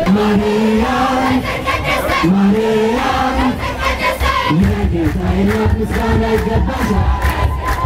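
A large crowd singing an Ethiopian Orthodox hymn (mezmur) together, the melody held on long notes, with rhythmic handclaps.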